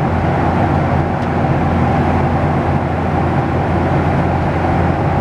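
Steady cabin noise of a Boeing 737-800 in flight: the even rush of airflow and CFM56 jet engines, with a low steady hum beneath.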